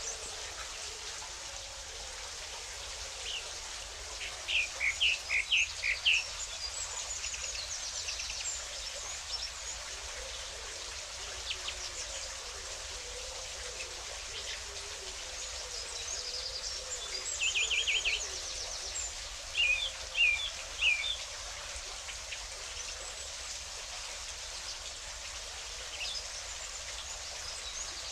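Steady rush of running water with small birds calling over it: a few quick groups of short chirps and some high, fast trills.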